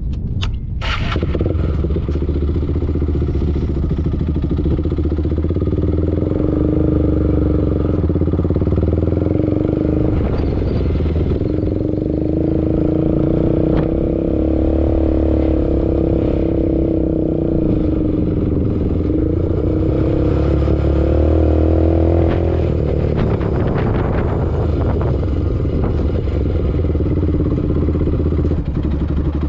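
ATV engine running as it is ridden, its pitch rising and falling repeatedly with the throttle.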